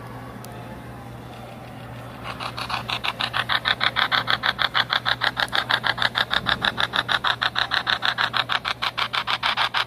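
A Spirit Box app on a smartphone sweeping radio frequencies, starting about two seconds in with loud, choppy bursts of static that repeat rapidly and evenly, several times a second.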